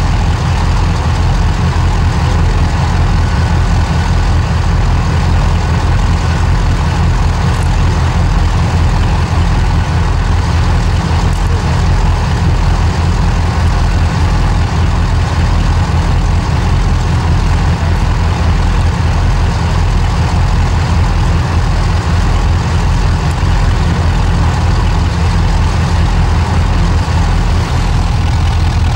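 Class 35 Hymek diesel-hydraulic locomotive's Maybach engine idling steadily with a deep, even throb.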